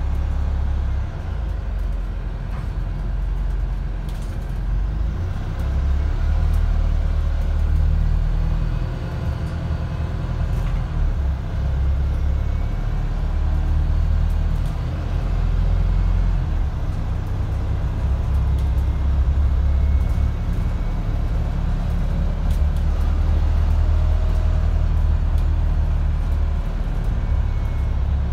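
Wright StreetDeck double-decker bus heard from inside the upper deck: a deep engine drone under hard driving that swells and eases several times as the bus accelerates and backs off, with occasional light interior rattles.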